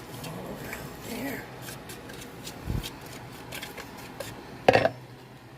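A floured metal cake pan is handled and knocked against a surface to spread the flour dusting and shake out the excess. There are light taps and clicks, a dull thump about three seconds in, and a loud metallic knock near the end.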